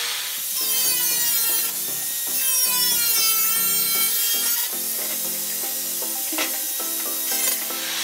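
Angle grinder with a cut-off disc cutting through the bottom of a perforated steel cable tray: a harsh screech that wavers in pitch as the disc bites. The screech eases about four and a half seconds in while the grinder keeps running, and there is a single sharp click near the end.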